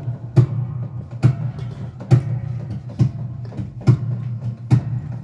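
Live music with no vocal: sharp, evenly spaced hits a little more than once a second over a steady low drone.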